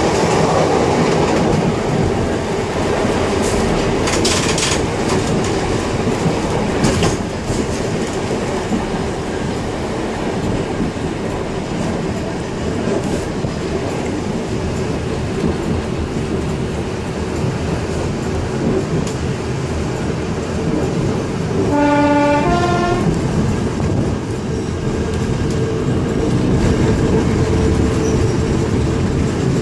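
Vintage electric tram running on its track, heard from the driver's cab: steady rumble of the running gear with wheels clicking over rail joints and a few sharper knocks. About three quarters of the way through, a short two-note horn blast sounds.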